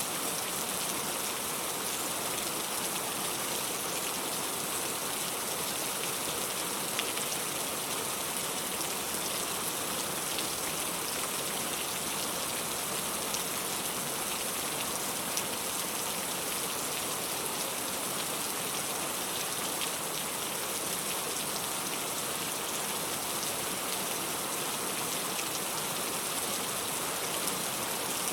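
Steady rain falling, an even hiss with a few scattered louder drop ticks; no thunder in this stretch.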